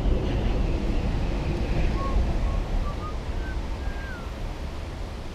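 Wind rumbling on the microphone over moving creek water, with a few short, high whistled notes from about two to four seconds in, the last one falling.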